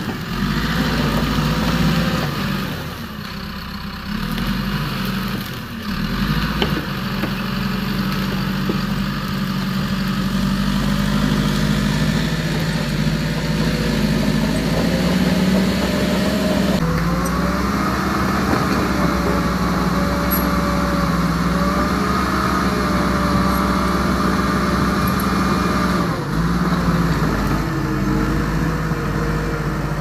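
Steady engine-like running sound: a low hum with higher whining tones, changing abruptly about 17 seconds in and again near 26 seconds.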